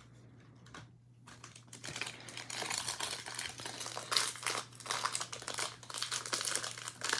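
Crinkling and crackling of plastic trading-card packaging and sleeves being handled, starting about a second in and getting busier and louder.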